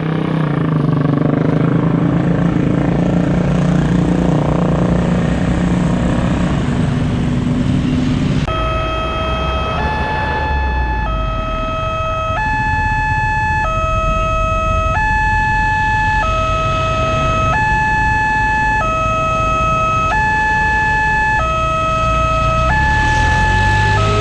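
A steady, low engine drone with traffic rumble, cut off abruptly about eight seconds in. A railway level-crossing warning siren then starts, alternating between a low and a high tone about every 1.2 seconds over the traffic.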